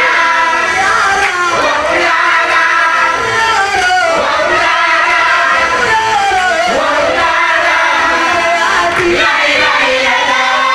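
A mixed group of men and women singing a devotional chant together, loud and steady, with one voice sung close into a microphone and hands clapping.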